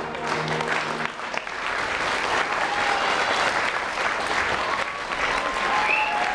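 The dance music stops about a second in, and an audience applauds steadily.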